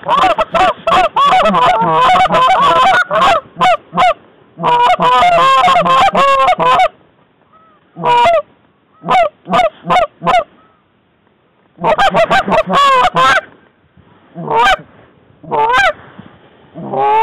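Hand-blown goose calls imitating Canada geese, sounding fast runs of honks and clucks in several loud bursts, with single spaced honks in between and near the end. This is hunters calling to geese.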